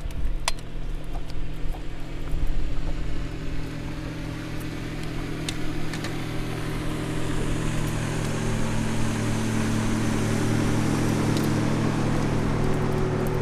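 Boat's outboard motor running steadily at trolling speed, a low drone that grows louder through the second half, with a few faint clicks of handling.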